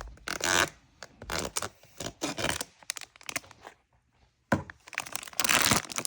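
Blind-box packaging being torn open and rustled by hand: irregular scraping, tearing and crinkling with short pauses, and a brief quiet gap about four seconds in.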